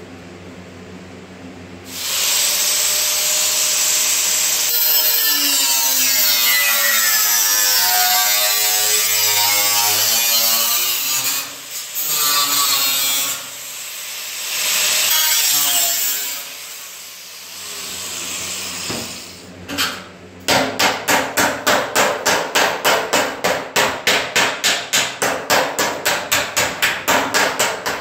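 Sheet-steel fender panel being worked with a hammer and dolly: a fast, even run of sharp metallic blows, about four or five a second, in the last third. It is preceded by a long, loud, rough noise whose pitch slides up and down.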